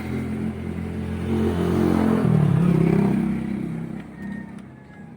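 A motor vehicle's engine running loud, revving up and down in pitch about two seconds in, then dying away and fading out near the end.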